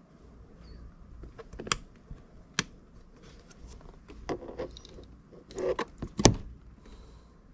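A few sharp plastic clicks and knocks with short rattling and scraping between them, the loudest click near the end: hands working at a car's interior switch and trim.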